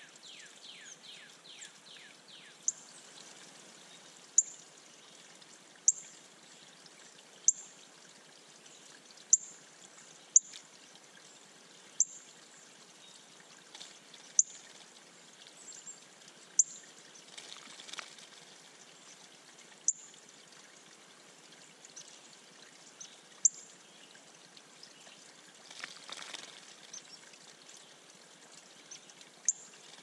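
Water trickling into a shallow bird pond, with sharp ticks every one to three seconds. A female northern cardinal splashes as she bathes, past halfway and again later.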